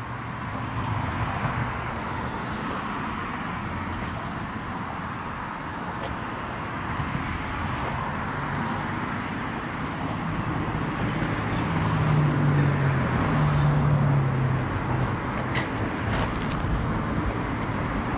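Traffic noise from road vehicles passing by, a steady wash of tyre and engine sound. It grows louder about two-thirds of the way through as one vehicle's low engine note swells and passes.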